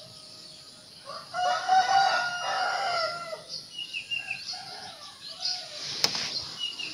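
A rooster crowing once, one long call of about two seconds, followed by short clucks and high bird chirps, with a sharp click near the end.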